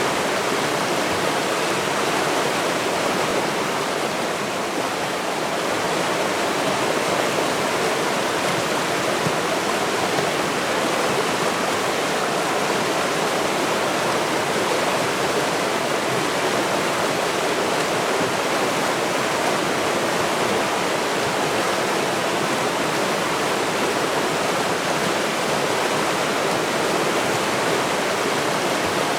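Steady rush of a river's flowing water, an even, unbroken hiss with no distinct splashes.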